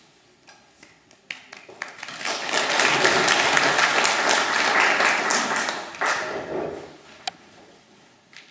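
Audience applause: a few scattered claps about a second in swell into steady clapping, then die away at about seven seconds.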